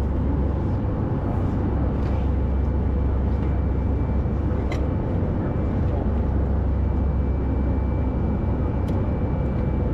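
Steady cabin noise inside an Airbus A319: a loud, even rumble of the jet engines and airflow, with a faint high steady whine. Two faint clicks sound, one about halfway through and one near the end.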